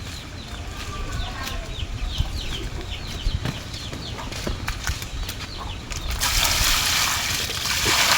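A small bird chirping repeatedly, short high downward-slurred notes about two a second, with scattered light knocks. About six seconds in, a loud rush of splashing water takes over.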